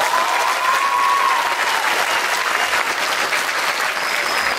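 Audience applause, loud and steady, with a single held high note over it in the first second and a half.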